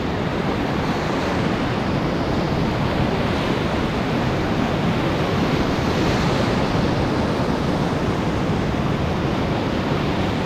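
Whitewater rapids rushing and breaking around a canoe: a steady, loud rush of churning water.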